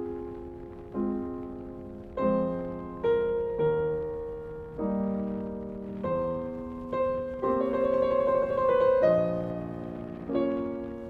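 Background music: slow piano chords, each struck and left to die away, a new chord about every second, swelling louder for a held passage near the middle.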